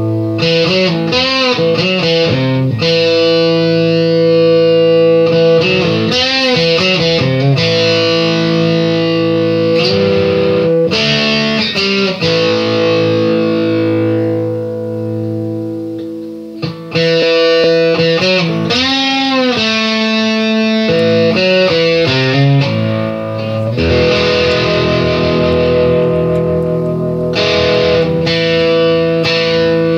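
Background music: an electric guitar played through effects, with long held notes and wavering string bends.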